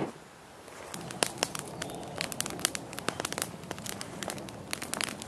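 Newly lit kindling fire of dry twigs and pine cones catching and crackling, with many sharp pops from about a second in.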